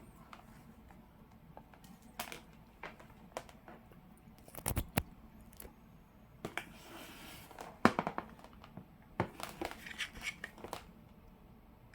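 Handling noise as a cable is plugged into a handheld sound card and a phone: scattered clicks and knocks of plugs and plastic, with a brief rustle about seven seconds in and a cluster of clicks near the end.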